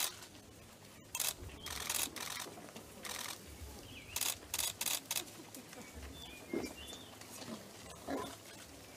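Camera shutters firing in short quick runs, several clicks close together around the middle.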